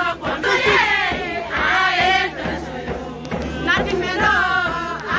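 A crowd of voices singing together in short repeated phrases, a welcoming chant.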